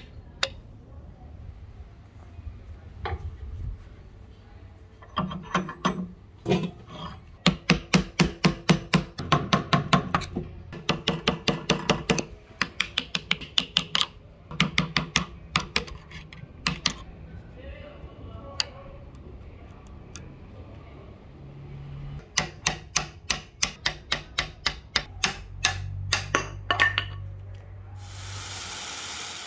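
A hammer striking a steel punch set in a Keen Kutter axe head's eye, driving out the old metal wedge and handle: two long runs of quick, ringing metal-on-metal blows. Near the end an angle grinder starts up and runs with a steady whine.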